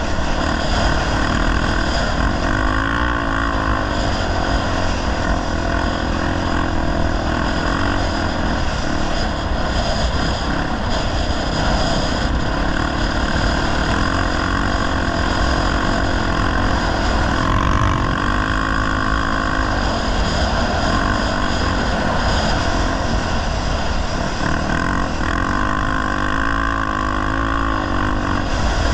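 Honda Tornado 250 trail bike's single-cylinder four-stroke engine running under load as it is ridden without a working clutch. The revs rise and fall a few times over a steady rushing noise.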